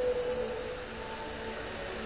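Music for a dancing fountain show, played over loudspeakers: a long held note fades about half a second in and softer held notes follow, over a steady hiss from the spraying water jets.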